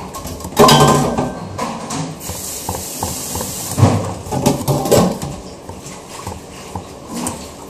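Knocks and clatter of objects being handled, loudest about half a second in and again around four to five seconds in, with a steady hiss lasting about a second and a half in the middle.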